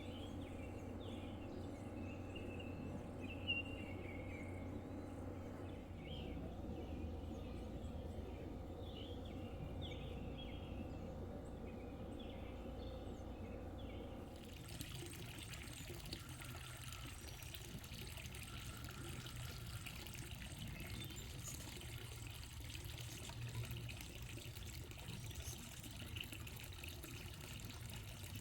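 Quiet outdoor ambience with a few short bird chirps, changing abruptly about halfway through to a faint, steady trickle of running water.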